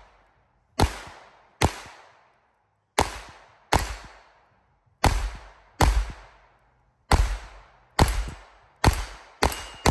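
Pistol shots fired in pairs, about ten shots in all, each pair a bit under a second apart, and each shot trailing off in a short echo.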